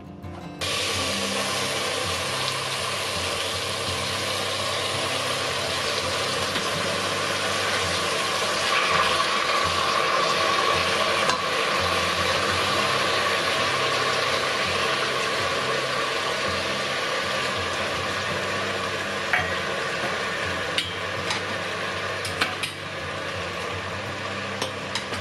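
Miyeok (wakame seaweed) sizzling steadily as it is stir-fried in a hot stainless steel pot and stirred with a wooden spoon. The sizzle starts suddenly about half a second in, and a few sharp clicks come near the end.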